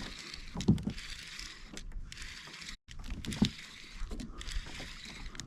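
Scattered clicks and knocks of fishing tackle being handled on a kayak while a fresh live bait is rigged, over a steady hiss.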